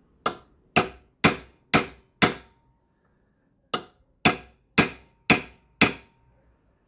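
Claw hammer striking a large steel center punch against a steel lawn mower handle tube clamped in a vise, folding down a dent in the tube. Two runs of five sharp metal-on-metal strikes, about two a second, each with a short ring, with a brief pause between the runs.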